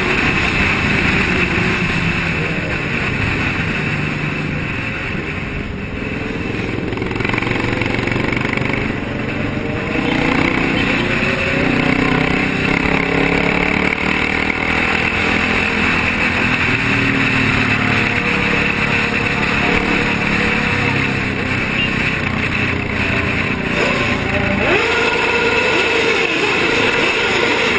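A group of motorcycles riding together, their engines running continuously with the revs rising and falling, and more revving near the end.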